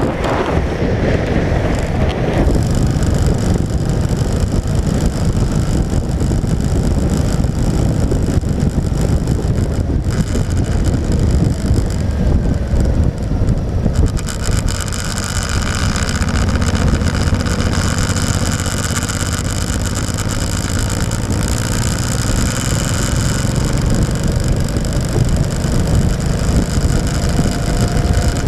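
Motorcycle running along a wet road, heard through a low-mounted action camera: heavy wind rumble on the microphone over the engine. A steady hiss grows stronger about halfway through, and the engine note drifts slowly upward in the second half.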